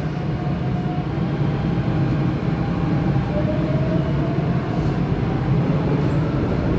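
Cabin noise of a Taipei Metro C321 steel-wheel train pulling away from a station: a steady rumble of wheels on rail, with a faint whine that rises in pitch about three seconds in as it gathers speed.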